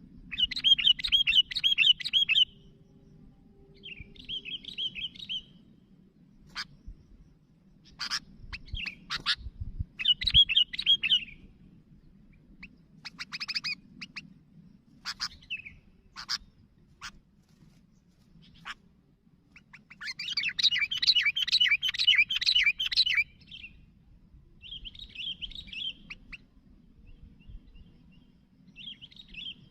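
Sooty-headed bulbuls (kutilang) singing lively 'gacor' song in bursts of rapid chirping. Short sharp single notes fall between the bursts, and the longest, busiest burst comes about two-thirds of the way through.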